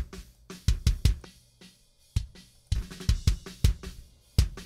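Raw kick-in microphone track from a pop-punk drum recording played solo: a powerful kick drum hitting in a rock beat, with the rest of the drum kit leaking into the mic.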